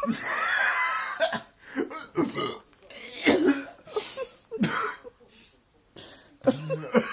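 A man's retching hiccups: each hiccup comes out as a loud gagging, burp-like heave, as if he is about to be sick. The first, right at the start, is the longest, followed by a string of shorter ones.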